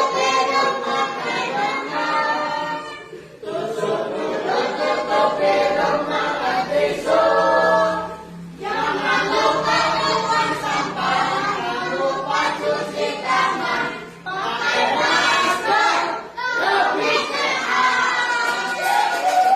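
A group of voices singing together in phrases a few seconds long, with short breaks between them.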